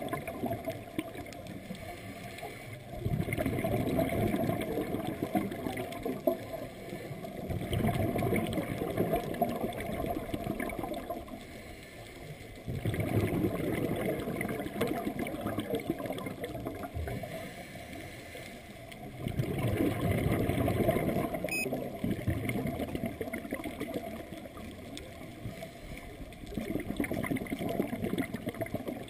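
Scuba diver breathing through a regulator underwater: five bubbling, gurgling rushes of exhaled air, each about four seconds long, coming every five to six seconds with quieter gaps between.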